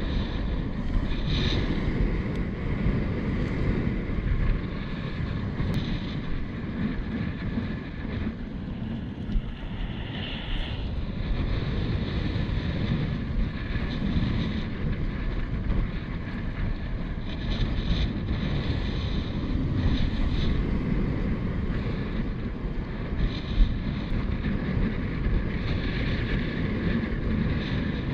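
Wind buffeting an action camera's microphone in an uneven low rumble, over choppy sea water lapping against a stone harbour quay.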